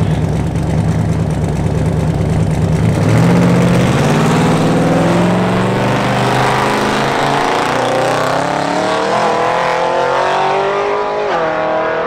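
Twin-turbo 427 cubic-inch LS V8 of a 1961 Buick Skylark pulling away down the strip: a low, steady engine note for about three seconds, then the pitch climbs steadily as the car accelerates away, with a brief dip near the end.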